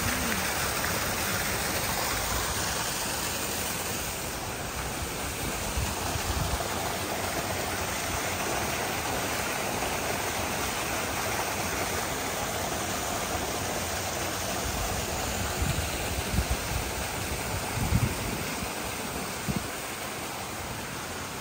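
Water from a garden fountain splashing and trickling steadily into a pond. A few soft low bumps come in the second half.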